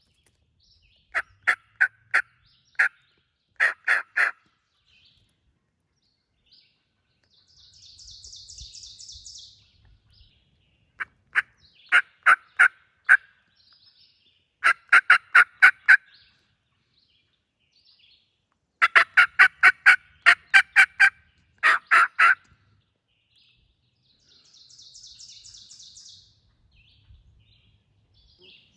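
Turkey yelps in several runs of four to eight sharp, evenly spaced notes, with pauses between runs. A fainter, higher buzzy trill comes twice.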